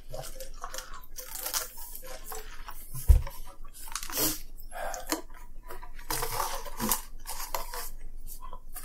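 Eating sounds: a cardboard food box being handled and rustled, with chewing and small clatters, and a single low thump about three seconds in.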